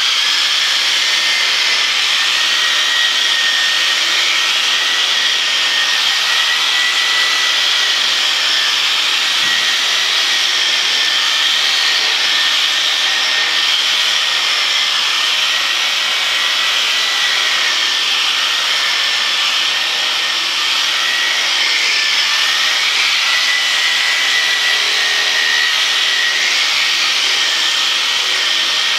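Electric sheep shears running steadily with a high whine, clipping through a ram's wool fleece; the pitch wavers slightly as the blades meet the wool.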